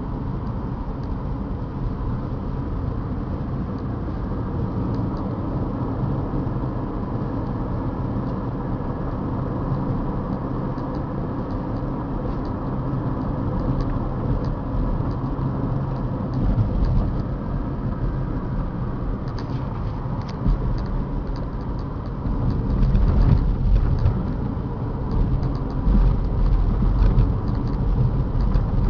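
A car driving, heard from inside the cabin: steady engine and road rumble. The low rumble grows louder and more uneven over the last several seconds.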